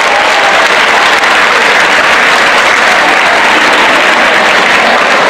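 Crowd of people applauding, a steady sustained round of clapping.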